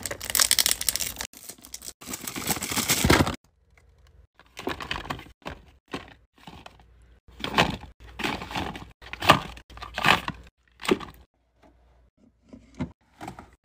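Paper wrapping crinkling as it is cut and torn open for the first three seconds or so. Then a string of separate taps and clacks as cardboard soap boxes and plastic bottles are set down and arranged on shelves.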